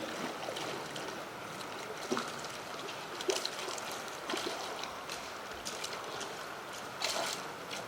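Stream water running steadily, with a few faint short ticks scattered through it.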